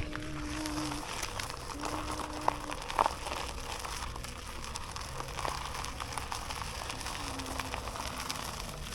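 Steady hiss of wind and rolling noise during a Onewheel ride, with faint background music underneath.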